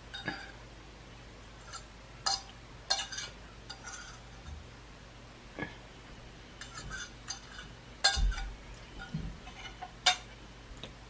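Close-up eating sounds: utensils clinking on a plate between bites, with chewing of crunchy stir-fried vegetables and shrimp. The clicks come irregularly, and the loudest ones fall about eight and ten seconds in.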